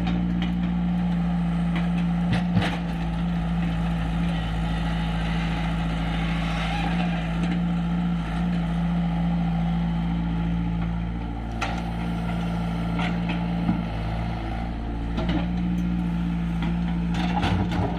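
Diesel engine of an earthmover (a JCB / Tata Hitachi digging machine) running steadily under work, with a few short sharp knocks from the machine.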